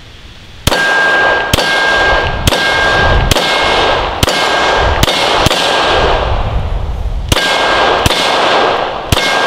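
Canik TP9SFx 9mm pistol fired about ten times at a steady pace, roughly one shot a second with one longer pause. Most shots are followed by a steel target ringing at one clear pitch, the sign of a hit.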